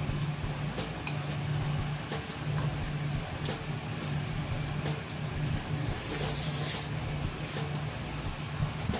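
A metal fork clicking and scraping lightly against a ceramic plate of noodles while eating, over a steady low hum. A brief hiss comes about six seconds in.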